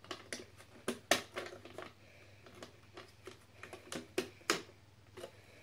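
Irregular hard-plastic clicks and knocks as the red fold-out legs on a Bruder toy cattle truck's livestock box are pulled out and twisted into place. The sharpest knocks come about a second in and again around four to four and a half seconds.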